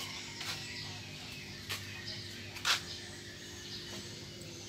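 Quiet outdoor ambience with birds chirping faintly over a steady low hum, broken by a few sharp knocks, the loudest about two and a half seconds in.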